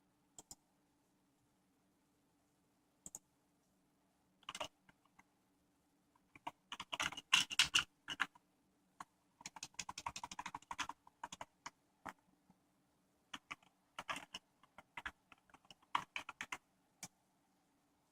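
Typing on a computer keyboard: a few scattered single key clicks, then two runs of rapid keystrokes about a third and halfway in, and more clicks near the end.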